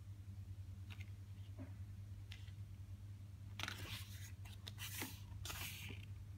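A page of a photobook being turned by hand: a few faint paper ticks, then a paper rustle lasting about two and a half seconds in the second half. A steady low hum runs underneath.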